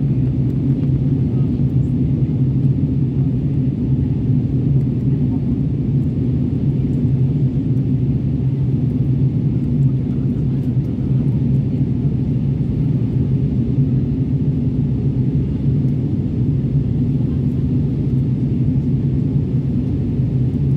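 Steady low drone of a jet airliner's engines and rushing air, heard inside the passenger cabin in flight.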